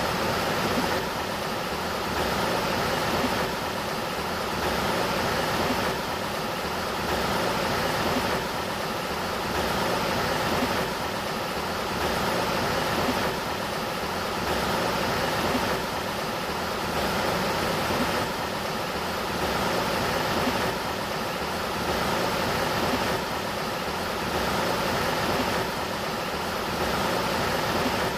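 Steady rushing of river water, swelling and easing about every two and a half seconds.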